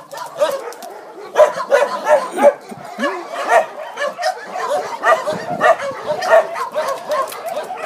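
Many dogs barking and yipping at once, short barks overlapping without pause.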